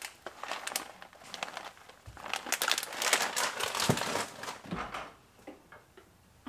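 Fabric rustling and scraping directly against a clip-on microphone as a hand handles it on a jacket: an irregular run of crackly rustles, loudest in the middle, dying away near the end.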